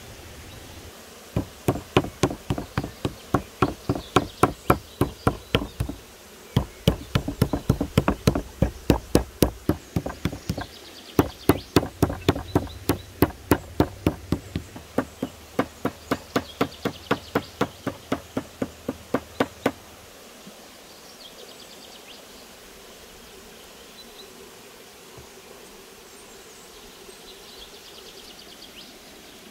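Wooden mallet pounding slices of raw lamb fat flat on a round wooden chopping board. The rapid blows come about four a second, in three runs with short breaks, and stop about twenty seconds in.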